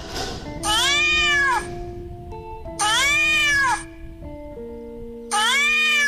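Domestic cat meowing three times, each meow about a second long, rising then falling in pitch.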